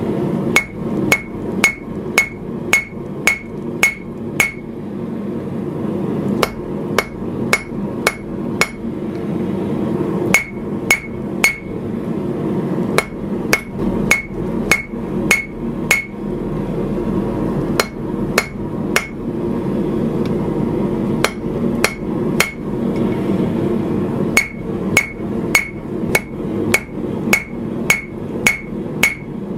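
Hand hammer striking red-hot steel on the horn of an anvil, forging the sweeping horn of a knife guard: runs of four to ten ringing blows at about two a second, with short pauses between runs, over a steady background rush.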